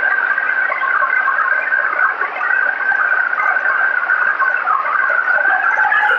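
Windrower running while cutting standing oats: a steady mechanical din with a high, slightly wavering whine.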